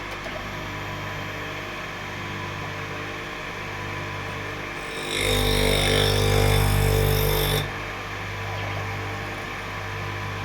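Electric motor of a homemade surface grinder spinning a 125 mm grinding stone with a steady hum. About five seconds in, for about two and a half seconds, a louder scraping grind as the stone rubs across a steel plate passing beneath it on the table, then only the hum again.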